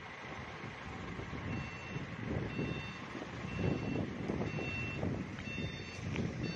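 Lonking forklift's reversing alarm beeping, short high beeps about once a second starting about a second and a half in, over a steady low rumble.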